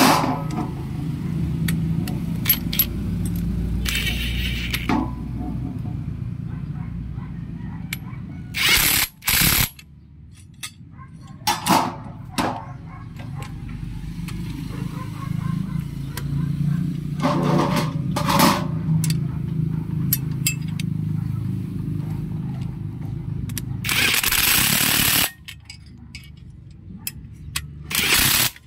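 Cordless impact driver running a socket in several short bursts, the longest about a second and a half near the end, driving bolts into a steel satellite-dish mount bracket. A steady low rumble runs underneath.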